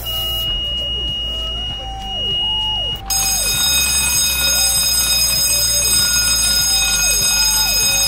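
Electric fire alarm bell ringing steadily from about three seconds in, set off by the smoke detector sensing the tester spray. Before it starts there is a single steady high tone.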